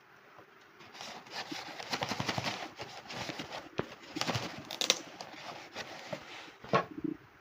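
Irregular rustling, clicking and knocking, as of something being handled. It starts about a second in and thins out near the end.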